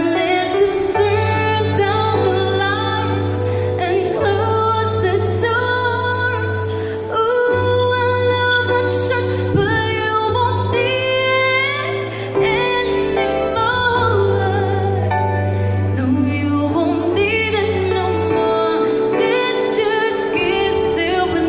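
Woman singing a melody through a microphone, accompanied by a keyboard playing held chords and low notes that change every couple of seconds.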